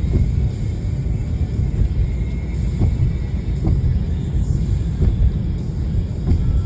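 Car driving on the road: a steady low rumble of engine and tyre noise, with a few faint bumps.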